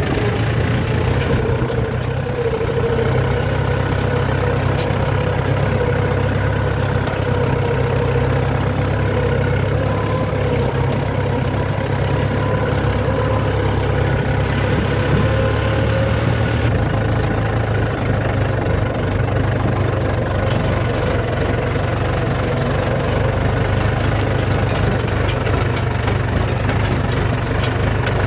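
Heavy diesel engine running steadily at low revs. About seventeen seconds in its note shifts, and scattered light clicks and knocks join it.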